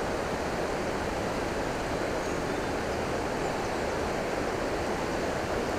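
Steady rush of flowing creek water over a shallow riffle, an even noise that holds at one level throughout.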